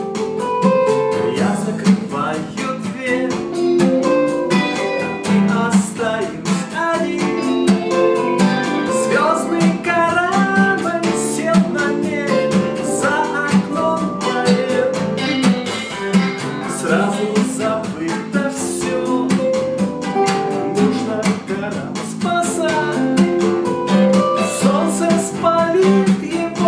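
Acoustic guitar strummed along with a backing track played through a small speaker, with a man singing over it.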